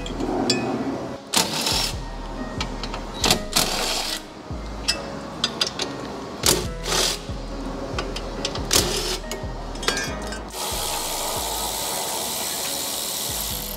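Short bursts of a Ryobi cordless driver spinning bolts out, over background music; about eleven seconds in, a cordless electric ratchet runs steadily for about three seconds.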